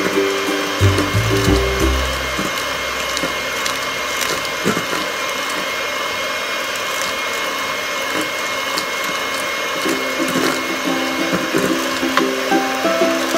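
Electric hand mixer running steadily with a constant whine, its beaters whipping egg whites in a stainless steel bowl as sugar is gradually added, with occasional light ticks. Background music plays over it, with melodic notes at the start and again near the end.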